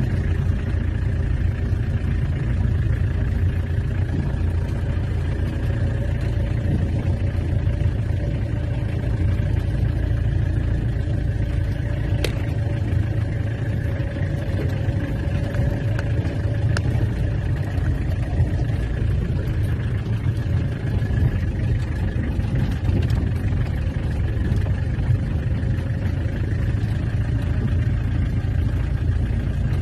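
Peugeot 404 pickup's XD3 four-cylinder diesel engine running steadily under way, heard from inside the cab with a constant low rumble of tyres and body on a dirt road. Two sharp clicks come about 12 and 17 seconds in.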